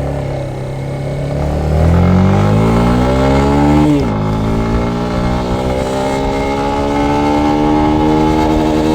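Yamaha Lander 250's single-cylinder engine revved hard while stationary: the pitch climbs steadily, drops sharply about four seconds in, then climbs again more slowly and holds high near the end, pushed toward its rev limiter.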